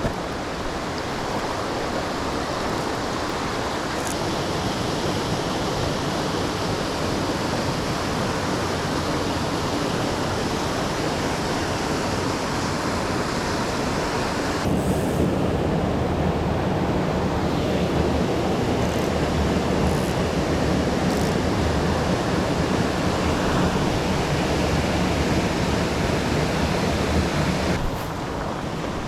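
Rushing water of a mountain stream, a steady loud noise; its character changes abruptly about halfway through and again near the end.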